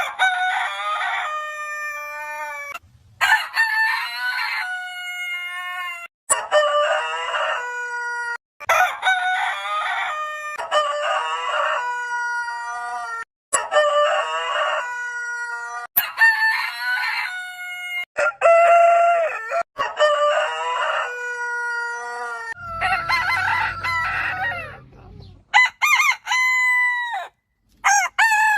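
Rooster crows in quick succession, about a dozen, each one to two seconds long and cut off abruptly before the next begins. The last few crows are shorter and drop sharply in pitch at their ends.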